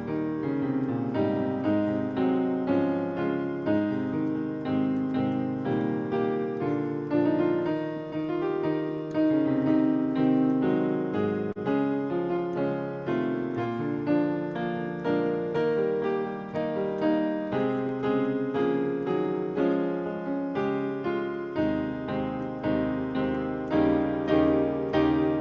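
Piano playing a hymn in steady chords.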